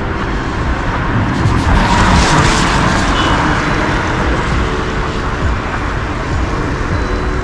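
A car passes close by on a city street, its road noise swelling to a peak about two seconds in and fading, over steady traffic noise.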